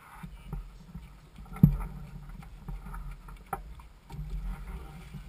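Laser 4000 sailing dinghy rocking in the shallows at the water's edge, knocks carrying through the hull over a low rumble of water and wind; the loudest knock is about a second and a half in, another comes a couple of seconds later.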